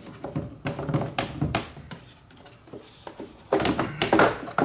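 A car's plastic air filter housing being worked open by hand: a few sharp plastic clicks and knocks, then a louder scraping rustle near the end as the lid is pulled up and the filter handled.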